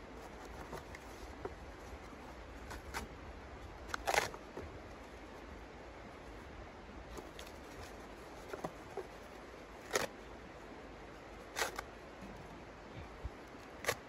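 Wood being handled and set into the firebox of a small steel wood stove: scattered light clicks and knocks, with four sharper knocks of wood against the steel, over a steady background hiss.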